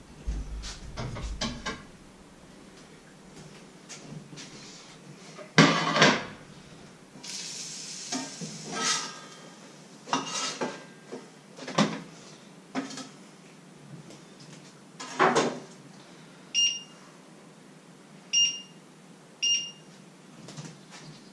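Metal pots, a frying-pan lid and a spatula clanking and scraping as food is turned out of a frying pan onto a plate. Near the end come three short electronic beeps.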